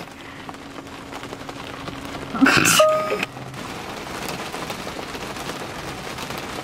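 Heavy rain drumming on a car's roof and windshield, heard from inside the cabin. About two and a half seconds in there is a loud sudden sound lasting under a second, which ends in a brief steady tone. After it the rain comes through more strongly.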